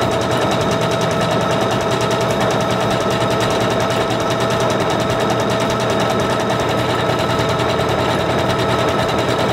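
Singer Confidence 7640 computerized sewing machine running steadily at speed, sewing out a wide decorative stitch: a steady motor whine over fast, even needle clatter.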